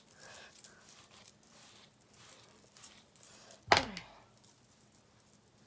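Hair being brushed out fast: a run of faint, quick scratchy strokes. A single loud thump comes a little past halfway.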